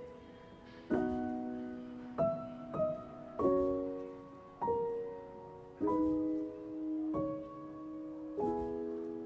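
Background music: slow piano chords, each struck and left to fade, about one a second.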